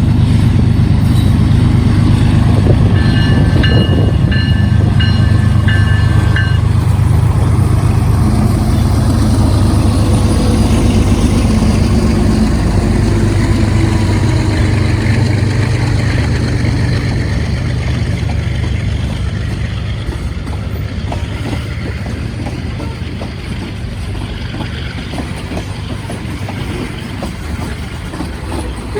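BNSF manifest freight train passing: the diesel locomotives rumble loudly, then the sound fades as the freight cars roll by. A short series of repeated high tones sounds about three seconds in.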